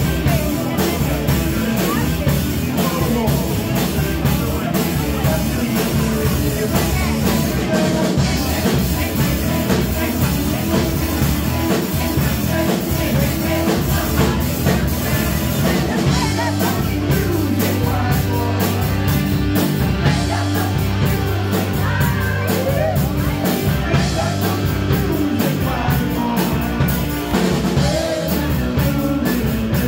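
Live rock band playing: electric guitars, bass guitar and drums, with a man singing into the microphone.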